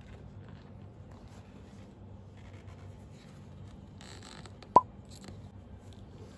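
Hands handling a black grained-leather waist bag and its woven strap: faint rubbing and scratching over a low steady hum, with a rustle and then one sharp click a little under five seconds in.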